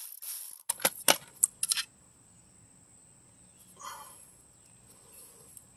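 A cordless ratchet whirs to a stop right at the start, having just spun off a nut on the back of an alternator. About a second in, a quick cluster of sharp metal clicks and knocks follows as the tool and loose parts are handled on concrete. A faint rustle comes about four seconds in as the alternator's rear cover is worked loose.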